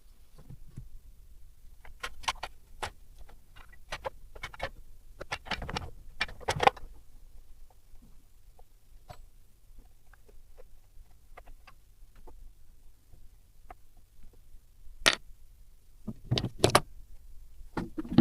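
Irregular metallic clicks, taps and clinks of hand tools and small metal parts being handled at a workbench, with a few louder knocks about six seconds in, at fifteen seconds and near the end. No engine is running.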